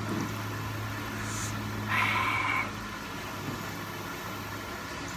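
Steady low motor hum, with a brief louder sound about two seconds in.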